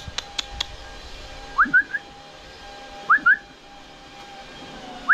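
A person whistling to call a cat: short, rising two- and three-note whistles, repeated three times. A few sharp clicks at the very start.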